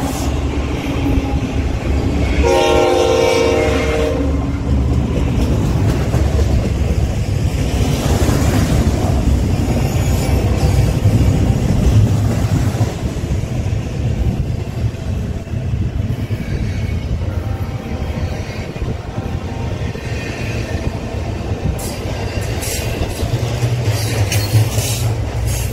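Intermodal freight train of loaded well cars rolling past close by with a steady heavy rumble. A locomotive air horn sounds once for nearly two seconds a few seconds in, and clacks from the wheels come through near the end.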